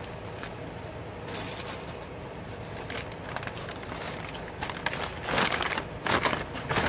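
Paper fast-food wrappers being handled and crumpled, with louder bursts of crinkling about three seconds in and twice near the end.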